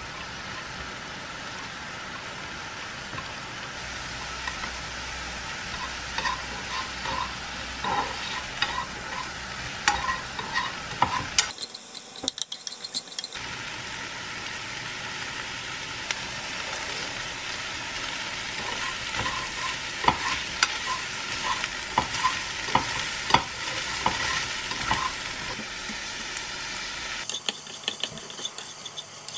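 Diced chicken and onion sizzling as they fry in a nonstick frying pan, stirred with a utensil that taps and scrapes against the pan in quick repeated strokes.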